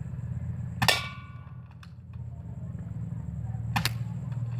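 Two sharp snaps from a spring-powered airsoft AK-47 (Skyma SM1003C) firing BBs, about three seconds apart; the first is followed by a short metallic ring.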